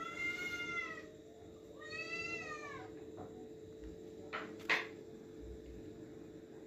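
A tabby-and-white kitten meowing twice, two long meows that rise and then fall in pitch. About four and a half seconds in come two sharp knocks, over a faint steady hum.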